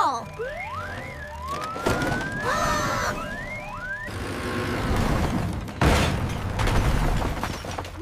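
Cartoon sound effects: a siren-like wail that rises and falls over the first few seconds, then a rumbling crash of a wall collapsing, with a sudden loud hit about six seconds in.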